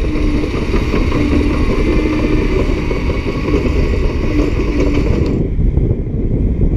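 Caterpillar D7E diesel-electric bulldozer running close by as it grades soil: a steady, loud low rumble with a faint intermittent whine over it. About five seconds in the higher hiss cuts off abruptly, leaving only the low rumble.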